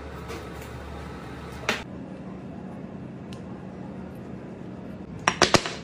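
Steady low hum of a commercial kitchen, with one sharp tap about a second and a half in and a quick run of three or four sharp clicks near the end, from metal tools at work on a salmon fillet on the cutting board.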